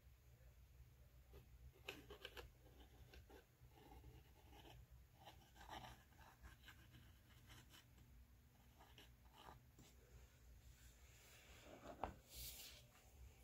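Faint, intermittent scraping of a metal palette knife dragging through thick oil paint on a canvas, in short strokes. Near the end a light knock, as the small stretched canvas is set down on the table, is the loudest sound.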